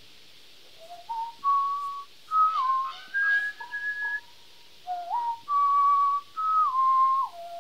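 A person whistling a slow tune in clear, held notes that step up and down. The opening phrase comes round again about halfway through.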